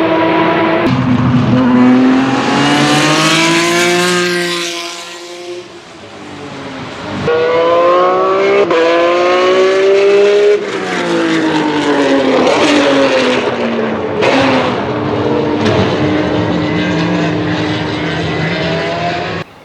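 Formula 3 single-seater race cars at high revs on track, their V6 engine notes climbing through upshifts and falling as they brake and downshift or pass away. Several short clips are joined, with abrupt jumps in the sound about one and seven seconds in.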